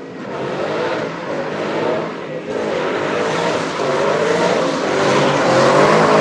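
Car engine revving hard, its pitch wavering up and down as the car spins doughnuts on dirt; it grows louder over the last few seconds.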